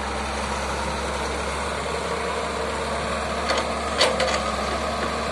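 Diesel engine of a Caterpillar wheeled excavator running steadily while it swings its arm round to load sand. Two sharp knocks come about three and a half and four seconds in, the second louder.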